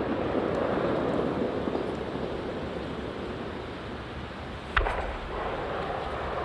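Fireworks display: a steady rushing background noise with one sharp firework shell burst just under five seconds in, followed by a short low rumble.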